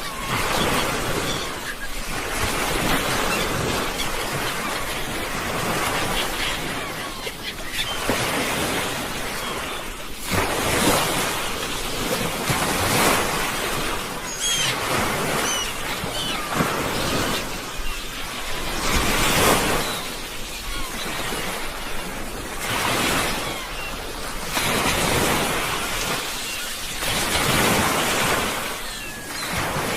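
Sea waves washing onto a shore, the surf swelling and falling back in irregular surges every few seconds.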